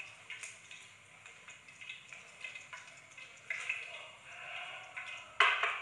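Hot oil in a frying pan ticking and crackling as fried chicken wings are lifted out of it. A sharp clank of cookware near the end is the loudest sound.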